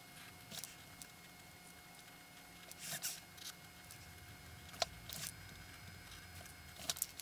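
Marker pen drawing on paper: a few short scratchy strokes scattered through, one a little longer about three seconds in, and a sharp tick near five seconds.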